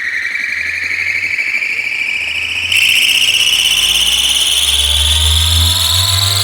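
Rising electronic sweep played through a large DJ sound system for a sound check: several tones glide slowly upward together over a low bass rumble, and the sweep jumps louder about three seconds in.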